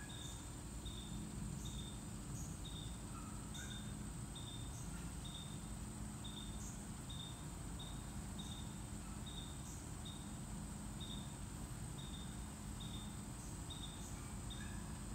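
Insects chirping and buzzing in the trees: a steady high buzz with a short chirp repeating about twice a second, over a low steady rumble.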